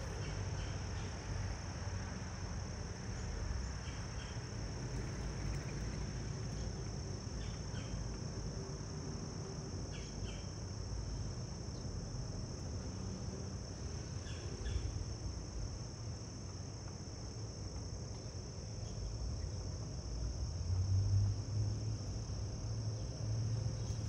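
A steady, high-pitched insect chorus, with a few short faint chirps here and there and a low rumble near the end.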